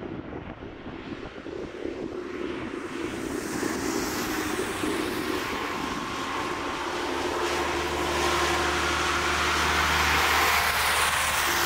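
A convoy of tractors approaching along a wet road: diesel engines and the hiss of tyres on wet tarmac growing steadily louder as the leading tractors draw near, with a steady low engine drone coming in over the second half.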